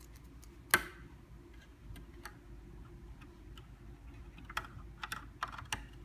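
Small clicks and taps as a SO-DIMM memory module is handled and pushed into the memory slot of an HP EliteDesk 800 G1 mini PC. One sharp click comes about a second in and is the loudest. A cluster of lighter clicks follows near the end.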